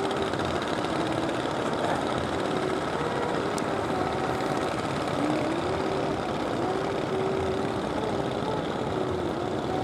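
Fishing-boat engines running, their pitch dipping and rising every second or two as the boats work through the estuary mouth, over a steady wash of sea and wind.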